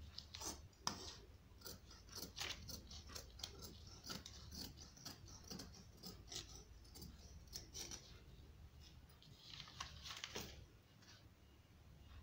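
Faint snipping of tailor's shears cutting through cloth in short, irregular strokes, mixed with the rustle of the paper pattern and fabric being handled.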